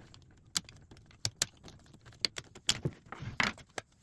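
Irregular sharp clicks, light knocks and metallic clinks of clamps and a steam-bent walnut strip being handled, about a dozen scattered through the stretch, with the busiest cluster near the end.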